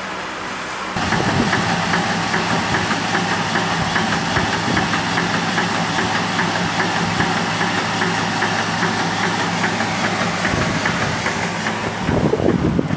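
Steam engine of a farm-waste (biomass) fired generator running, its flywheel belt-driving the generator, with a fast, even knocking over a steady hum; it gets much louder about a second in. A brief loud rumble comes near the end.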